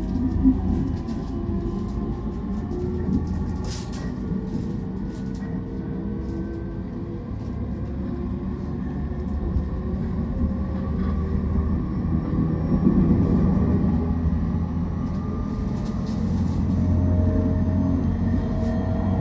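Interior running noise of a JR East Shonan-Shinjuku Line electric train at speed: steady wheel-and-rail rumble with the whine of the traction motors. Wheels click over rail joints now and then, and the motor tone rises near the end.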